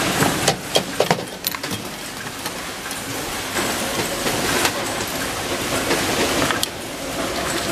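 Steady workshop machinery noise with sharp metallic clicks from steel concealed-hinge parts: a quick run of clicks in the first second and a half, then single clicks later while parts are fed into a pillar press.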